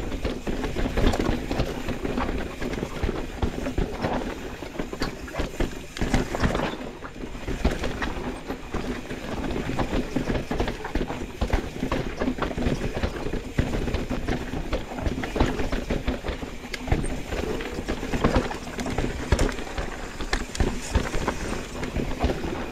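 Mountain bike descending a rocky technical downhill trail: tyres crunching and bumping over rock, with a constant irregular clatter and rattle of the bike over the rough ground.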